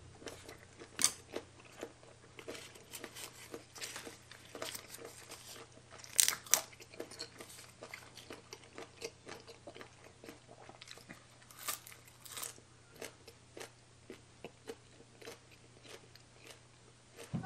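Close-up chewing and crunching of a spicy baby cuttlefish salad eaten with fresh leaves: a steady run of wet clicks and crunches, with louder crunches about a second in, around six seconds and around twelve seconds.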